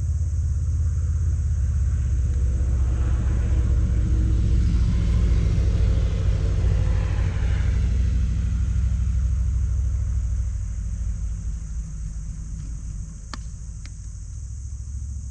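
A motor vehicle's engine passing by: a low rumble that grows to a peak a few seconds in, then fades away over the second half. A single sharp click comes near the end.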